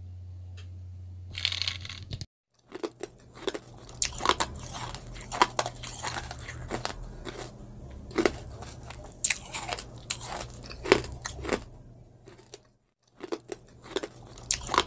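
Chewing and crunching: a string of irregular crisp crunches and bites, with a short break near the end. It opens with a low steady hum and a brief rustle before a sudden cut.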